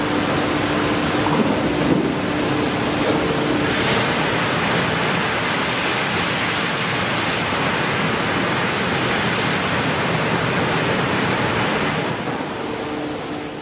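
High-pressure water jets of a hot-mill descaler spraying onto a red-hot steel slab: a loud, even rushing hiss, with a steady low machinery hum under it for the first few seconds and again near the end.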